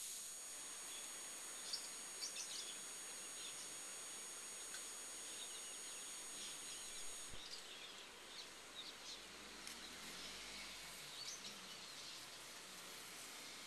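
Faint outdoor background noise with scattered short, high chirps. A set of steady high tones stops suddenly about halfway through.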